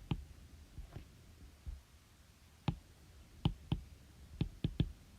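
A series of about ten short, sharp clicks at irregular intervals, some in quick pairs, over a faint low hum.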